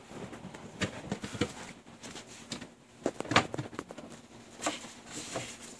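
Festool Systainer plastic tool case being opened by hand: its latch unclipped and the lid lifted, a scattered series of hard plastic clicks and knocks.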